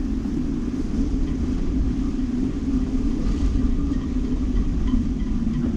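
Steady low rumble of strong, gusty wind buffeting the microphone.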